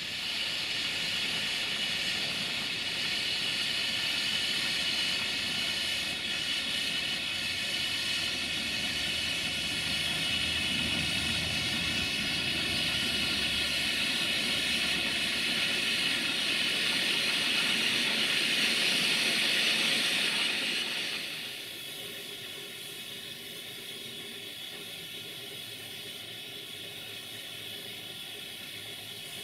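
Reșița-built narrow-gauge steam locomotive Cozia 1 venting steam with a loud, steady hiss. The hiss drops sharply to a quieter level about twenty seconds in.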